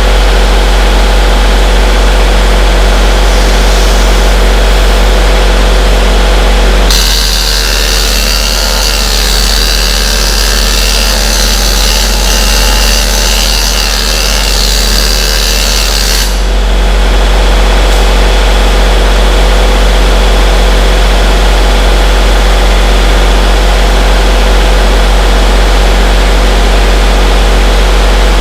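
Electric arc welding crackling and hissing for about nine seconds, starting about seven seconds in, as a gusset plate is welded over the cracked frame of a Cat D3C dozer. A steady low machine hum runs underneath throughout.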